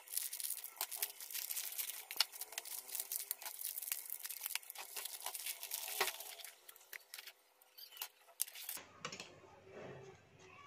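Plastic biscuit wrapper of an Oreo packet crinkling and tearing as it is pulled open by hand, a dense crackle that stops about nine seconds in, leaving a few faint clicks.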